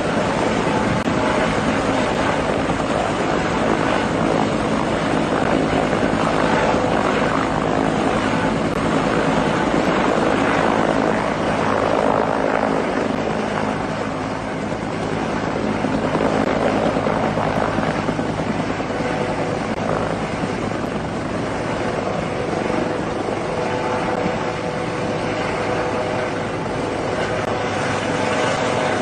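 Firefighting helicopter's rotor and turbine engine running steadily and close, a continuous roar with steady humming tones, easing slightly about halfway through before building again.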